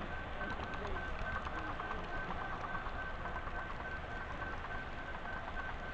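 Model train running along the layout track, heard from the camera riding on it: a steady high whine that keeps breaking up, with light clicking over the track, against the faint murmur of a large hall.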